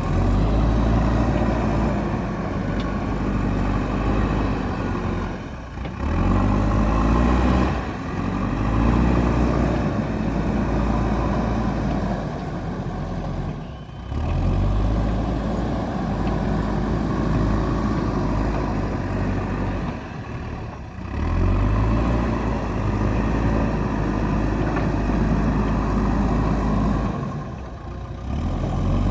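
JCB backhoe loader's diesel engine running under load, its pitch rising as it revs up several times. The sound breaks off abruptly at points throughout.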